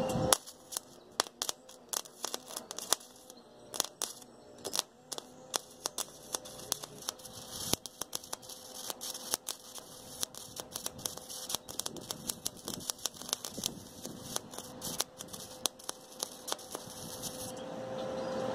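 Gasless arc welding on stainless steel tube: the welding arc crackles and pops irregularly, then stops near the end.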